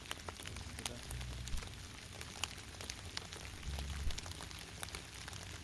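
Scattered light crackles and rustles, with two brief low rumbles, about a second in and again near four seconds.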